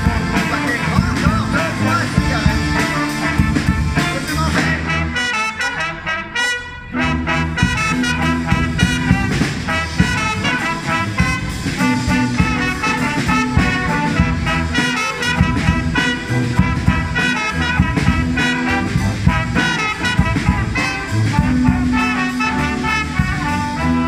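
Street band playing an instrumental passage: trumpets, trombone, saxophones, clarinets and flutes over accordion, acoustic guitar and sousaphone bass, in a swinging, jazzy style. The low end drops out briefly about six and a half seconds in.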